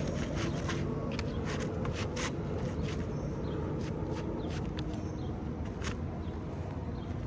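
Scattered light taps and scrapes as an asphalt repair shingle is worked in underneath the neighbouring shingles, over a steady outdoor rumble.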